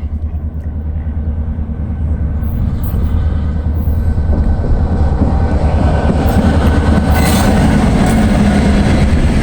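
Diesel locomotive of a local freight train approaching, its engine and wheels making a heavy rumble that grows steadily louder, with no horn.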